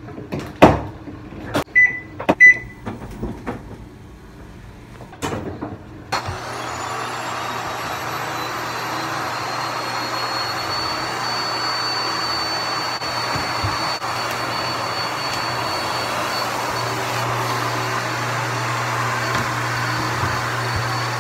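Canister vacuum cleaner running steadily with a high whine, starting abruptly about six seconds in. Before it come a few knocks and two short electronic beeps.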